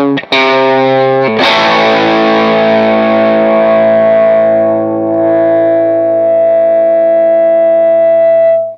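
Electric guitar with light overdrive, played through a Fender Blues Junior III tube combo amp fitted with a Celestion Greenback speaker. A few quick notes, then a chord struck about a second in that rings out for several seconds and is cut off abruptly near the end.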